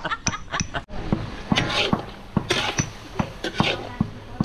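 A long metal spatula scraping and knocking in a large iron wok as chunks of buffalo meat fry over a wood fire. The sharp knocks come roughly twice a second, with short scraping strokes between them.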